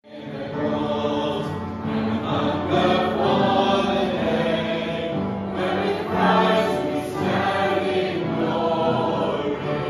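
Music with a choir singing held notes, fading in at the start.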